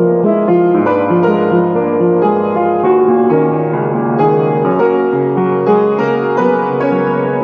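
Upright piano played solo: a melody over held chords, with notes struck and left ringing so they overlap.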